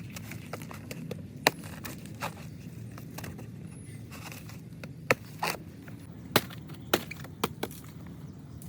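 A blade chopping banana stem into short pieces: irregular sharp knocks and crunches, about eight of them, most in the second half, over a steady low hum.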